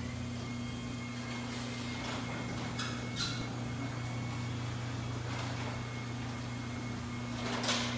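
Chamberlain B750C belt-drive DC garage door opener raising a sectional door: a steady motor hum with a faint high whine, and a few short clacks, the loudest near the end.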